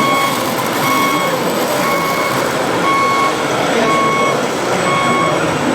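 Reversing alarm of a radio-controlled construction model beeping steadily about once a second, each beep short and high-pitched, over a constant dense background noise of the running machines.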